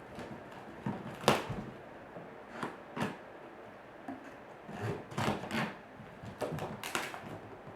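Unpacking a boxed wooden porch swing: irregular knocks, scrapes and rustles of the box and wooden parts being handled, the sharpest knock about a second in.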